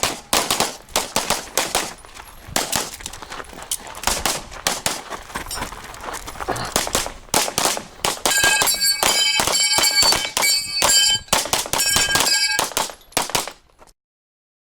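Pistol fired in rapid strings of shots, with steel targets ringing from hits through the second half. The sound cuts off suddenly near the end.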